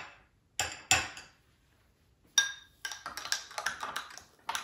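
A spoon clicks twice against glass, then from about two and a half seconds in stirs chia seeds into almond milk in a glass mason jar, with quick repeated clinks and scrapes.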